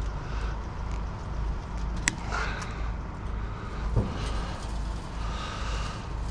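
Hand work on chain-link fence wire: a sharp metallic click about two seconds in and a dull knock about four seconds in, with faint scraping, over a steady low rumble.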